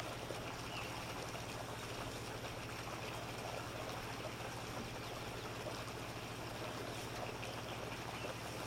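Steady background hiss over a low, even hum, with a few faint high chirps.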